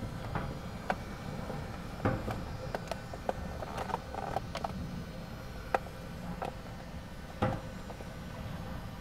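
Steady low rumble with about ten irregular sharp clicks and knocks scattered through it. The loudest knocks come near two seconds in, near six seconds and at about seven and a half seconds.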